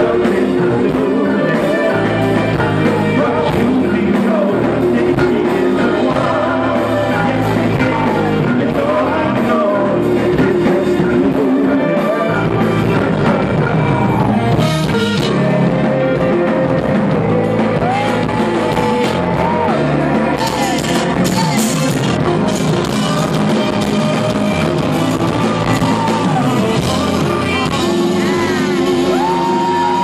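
A male lead singer performing live with a band: singing over drums and instruments.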